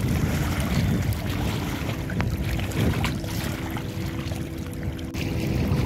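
Wind rumbling on the microphone over choppy river water lapping at the bank.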